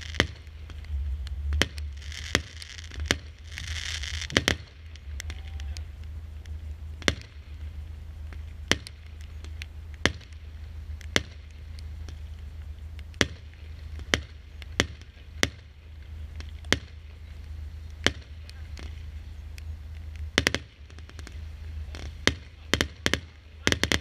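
Consumer firework battery firing shot after shot into the sky. Sharp bangs of bursting shells come at uneven gaps of about a second, with a quick cluster of bangs near the end.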